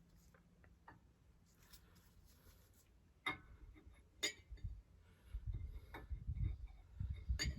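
Camshaft being worked into the cam bearings of an LQ4 V8 block: a few sharp metallic clicks spread through the second half, with low bumping over the last two seconds as the stubborn cam goes in.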